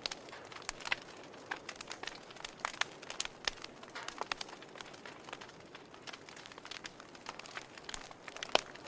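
Wood fire in a fireplace crackling: irregular sharp pops and snaps over a soft hiss, with one louder pop near the end.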